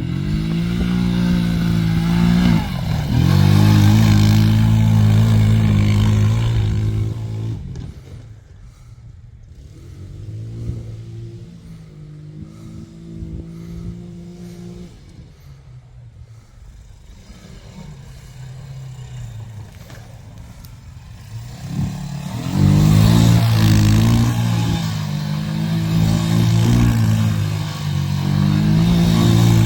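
ATV engine running under throttle, its pitch rising and dropping as it accelerates and shifts gear. It is loud for the first several seconds, drops back to a quieter running sound for a long stretch in the middle, then comes up loud again about two-thirds of the way through.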